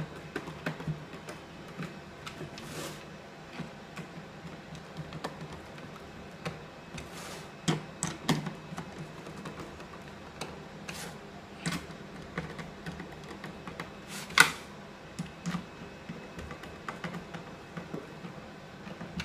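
Hand screwdriver tightening screws into a white plastic outdoor radio enclosure: irregular small clicks and scrapes, with a few louder knocks of the plastic case, the loudest about two-thirds of the way through.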